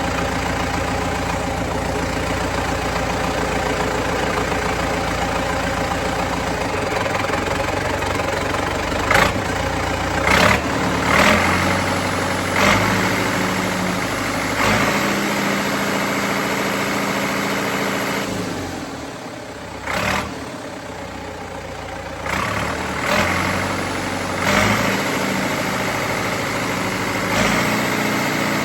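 Turbocharged diesel engine of a Case 770 tractor idling steadily on its first run after a head-gasket and cylinder-sleeve repair, with about nine short, sharp knocks or clicks scattered through it. The owner hears no knocks from the engine itself.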